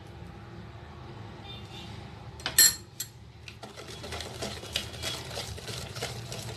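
Two sharp clinks about two and a half seconds in, then a wire whisk beating egg-and-sugar batter in a plastic bowl, a rapid run of clicks and rattles as the wires strike the bowl.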